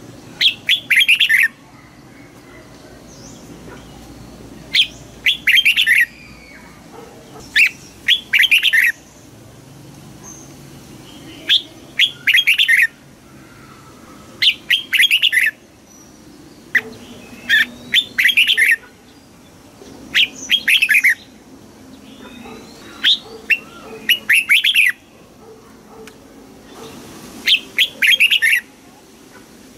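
Red-whiskered bulbul singing: short phrases of about a second each, repeated about every three seconds, around nine times.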